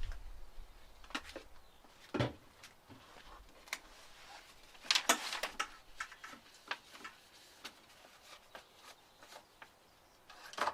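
Scattered light clicks and knocks from handling while oil is added to a lawn mower's sump and the dipstick is checked. A sharp knock comes about two seconds in and a louder clatter about five seconds in.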